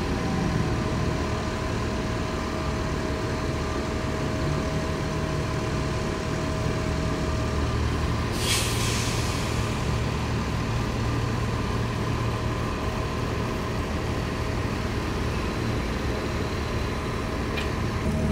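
A bus engine idling steadily, with a sharp hiss of air brakes about eight seconds in that fades away over a second or so.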